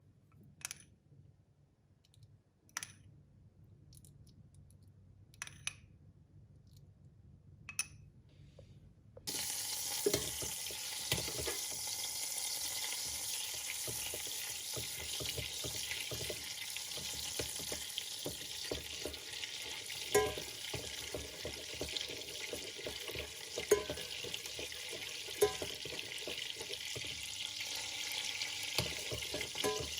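Kitchen sounds: a few light clicks, then a steady hiss starts suddenly about nine seconds in and runs on, with occasional short clinks over it.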